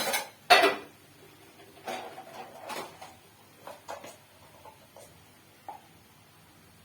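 Metal pots and utensils clattering and knocking: two loud clanks at the start and about half a second in, then a few lighter clinks.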